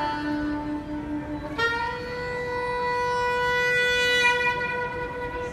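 Soprano saxophone playing a slow melody: a quick falling run into a low held note, then, about a second and a half in, a long higher held note that falls away near the end.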